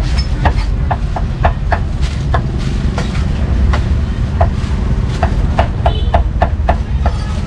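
A heavy cleaver chopping roast meat on a round wooden chopping block: sharp knocks at an uneven pace of about two or three a second. Under them runs a steady low rumble of street noise.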